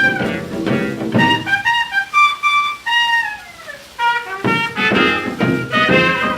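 1935 small-group New Orleans jazz band on a 78 rpm record, playing swing. The band drops out about a second and a half in, leaving a lone horn line that slides downward. The full ensemble comes back in about four and a half seconds in.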